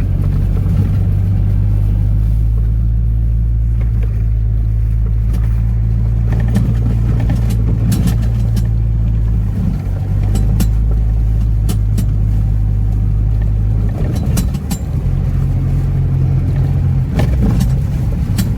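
An off-road truck's engine drones steadily as it drives, with scattered sharp knocks and rattles over the rough ground. About fourteen seconds in, the engine note changes as the revs shift.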